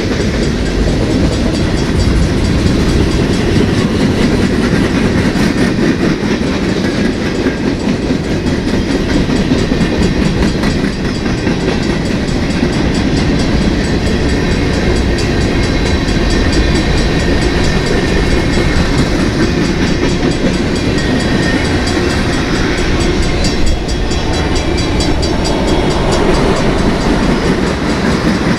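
Freight train rolling past: a steady rumble of railcar wheels on the rails with a clickety-clack over the rail joints.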